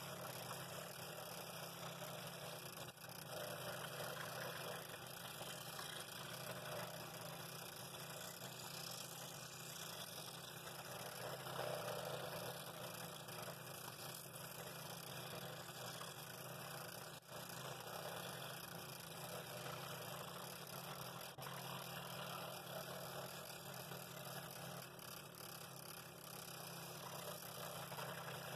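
Scroll saw running steadily, its reciprocating blade cutting intricate fretwork in a thin wooden board.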